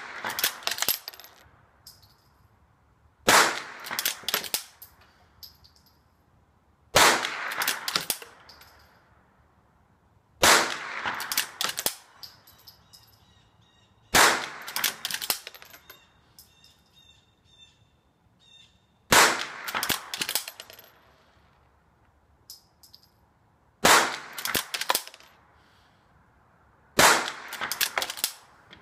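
Henry Classic lever-action rifle firing .22 Long Rifle, seven shots spaced three to five seconds apart, each followed by a quick clatter of clicks as the lever is worked to chamber the next round.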